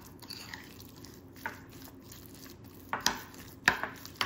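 Metal spoon stirring a thick chili-and-soybean-paste sauce in a ceramic bowl, quiet at first, then a few sharp clinks of the spoon against the bowl in the last second and a half.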